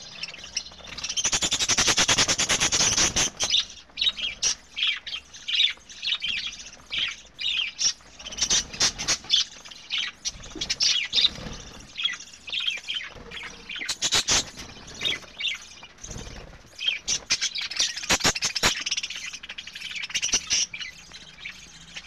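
A flock of budgerigars chattering, chirping and squawking with many quick overlapping calls. A loud run of unbroken chatter comes about a second in, and the calls grow dense again near the end.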